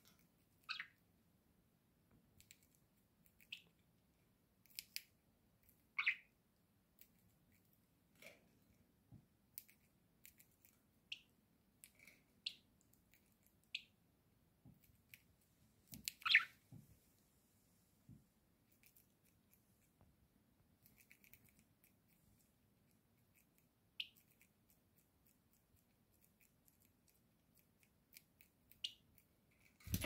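Budgerigars giving sparse short chirps and a few quick falling squeaks, the loudest about 6 and 16 seconds in, among faint clicks and snips of beaks nibbling fresh dill.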